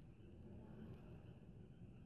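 Near silence: room tone.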